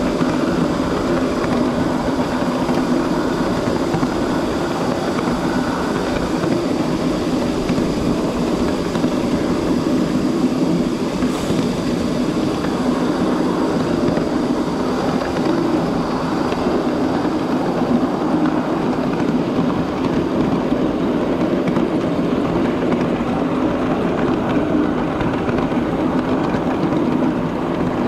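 A 7.5-inch gauge miniature train running along its track: a steady, even sound of the train and its wheels on the rails, with a constant low hum.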